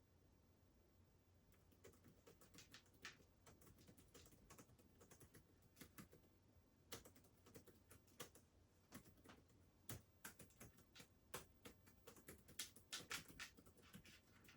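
Faint typing on a keyboard: irregular clicking keystrokes that start about a second and a half in and come faster towards the end, as an appeal message is typed.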